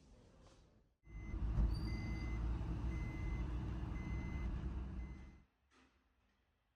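A vehicle rumbling with an electronic warning beep repeating about once a second, like reversing beeps; it starts abruptly about a second in and cuts off about four seconds later.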